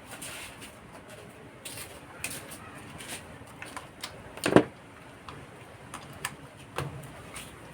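Scattered small clicks and taps of a smartphone and tools being handled on a work surface, with one louder knock about halfway through.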